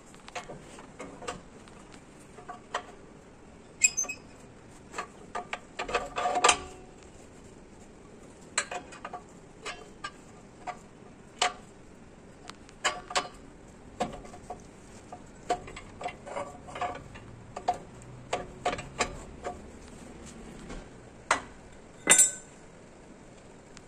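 Irregular metallic clicks and clinks of a brake shoe and its fittings being handled and seated against the hub and backing plate of an Ashok Leyland bus's drum brake, with a louder clank about six seconds in and again near the end.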